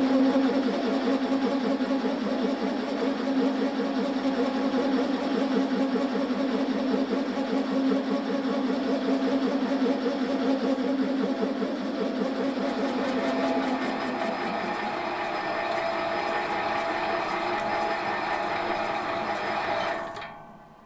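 Metal lathe spinning a boring bar between chuck and tailstock centre, taking a boring cut through a small engine cylinder, with a steady hum and a bit of vibration. The tone eases about 14 seconds in, and the lathe stops near the end.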